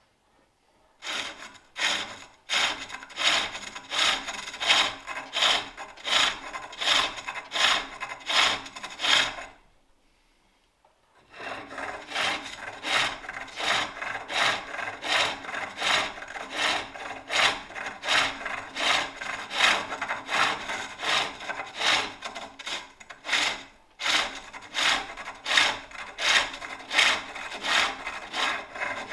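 Turning tool cutting a wooden bowl on a spring pole lathe: a rhythmic scraping cut with each treadle stroke, about two a second. It stops for a moment about a third of the way through, then starts again.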